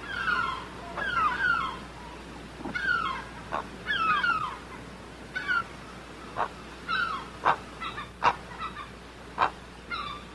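Bird calling: clusters of two or three short calls that slide down in pitch, then from about six seconds in, sharper single chips about once a second.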